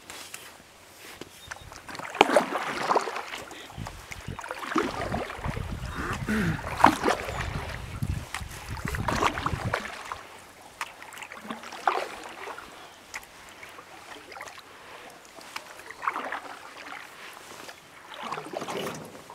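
Kayak paddle strokes: the blade dips and splashes in calm lake water every few seconds. A low rumble runs under the strokes for several seconds in the middle.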